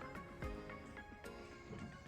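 Quiet background music, with held notes and a new note or chord every half second or so.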